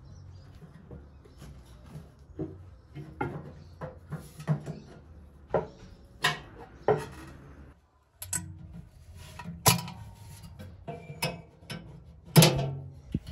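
Irregular metallic clanks, knocks and rattles as hands work on the motor and drive-assembly parts inside the steel body of a Venco No. 5 pottery wheel. The sound breaks off briefly about 8 s in, and the loudest knocks come about 10 s in and near the end.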